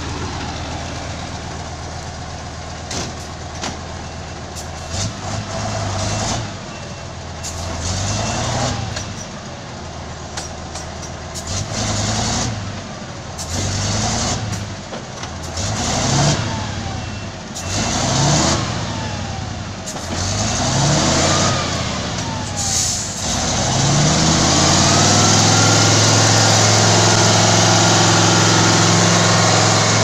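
Heavy vehicle's engine revved up and down over and over, about once every two seconds, with knocks and clatters among the revs, then held at high revs for the last several seconds.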